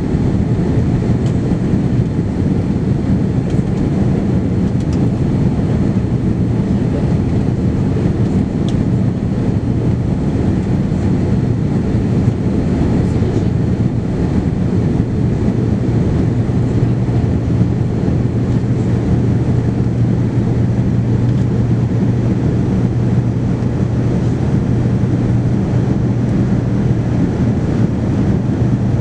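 Cabin noise inside a Boeing 787-9 Dreamliner during takeoff: a loud, steady engine drone with a low hum under a rushing airflow noise.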